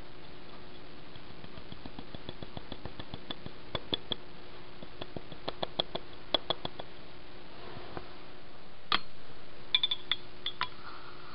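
A run of small, irregular ticks and clicks over a steady hiss, then one sharp click and a few ringing clinks of glass or metal near the end.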